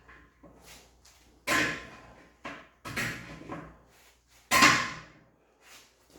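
Metal frame of a Jeep soft-top door being struck and forced to bend it straight: a series of sharp knocks, three of them loud and the last the loudest, each ringing briefly.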